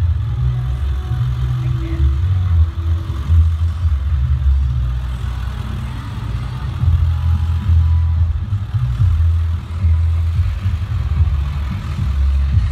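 Motorcycle engines running at low revs, a continuous uneven rumble that sits mostly in the low bass.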